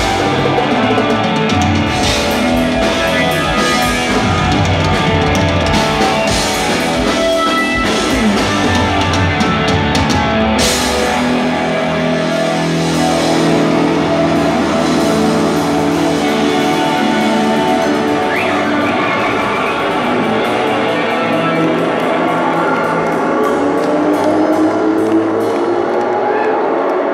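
Loud live rock played by a power trio of electric bass, electric guitar and drum kit, with cymbal crashes. Near the end the bass notes glide up and down in pitch as a bottle is slid along its strings.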